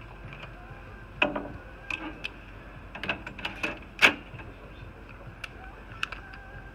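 Scattered clicks and knocks of tools and the metal chassis of a Cisco ISR 4351 router being handled, the loudest a sharp knock about four seconds in.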